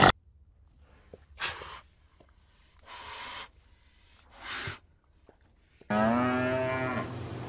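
A cow mooing: one call lasting about a second near the end, after three short, faint breathy sounds.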